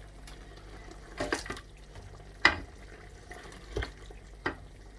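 Kitchen utensil knocking against a cooking pot, four or so short clinks, the sharpest about two and a half seconds in, over a steady low hum.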